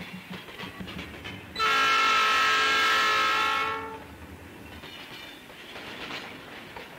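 A train horn sounds one chord-like blast of about two seconds, starting a second and a half in and fading out. Before it comes the faint regular clacking of train wheels on the rails.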